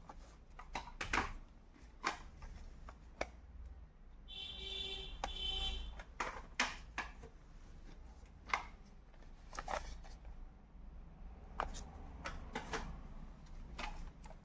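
Plastic audio cassette cases being handled, giving irregular sharp clicks and clacks. About four seconds in, a high ringing tone sounds for about a second and a half.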